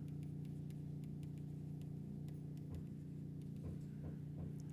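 Faint clicks and taps of a stylus writing on a pen tablet, over a steady low hum.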